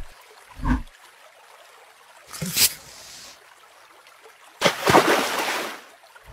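Close-up sounds of skincare being applied to the face: a soft low thump, a short swish about two and a half seconds in, then a louder hissing rush lasting about a second.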